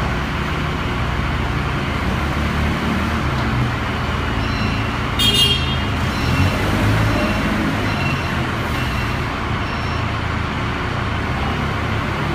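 2008 Cat P3000 forklift's propane-fuelled engine running steadily as the truck is driven, reversed and turned. A brief high-pitched squeal comes about five seconds in.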